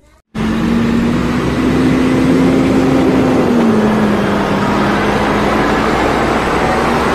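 Heavy truck pulling a long trailer drives along the road, its engine running with a steady hum over road noise. The sound starts suddenly just after the opening, and the engine pitch drops slightly about halfway through.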